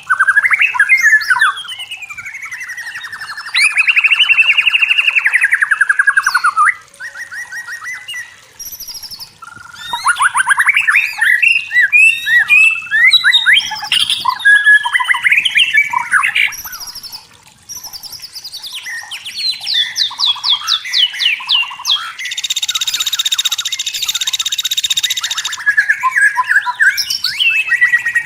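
White-rumped shama singing a long, varied song of whistled glides, rapid trills and quick runs of notes, with a harsh buzzy rattle about two-thirds of the way through.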